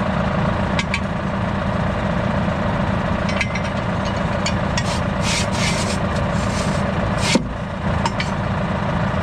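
Tractor engine idling steadily, with scattered metal clicks and one louder clank about seven seconds in as the mounted hoe's steel support stand is worked by hand with a wrench.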